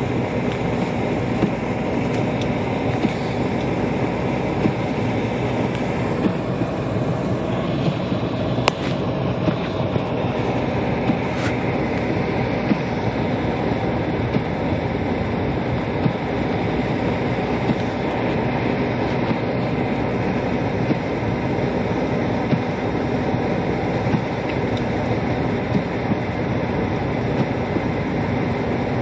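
Steady noise of a car's heater fan blowing inside the cabin, with small clicks now and then.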